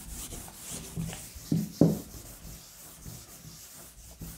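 Blackboard duster rubbing across a chalkboard in repeated wiping strokes, erasing chalk writing, with a couple of soft bumps about a second and a half in.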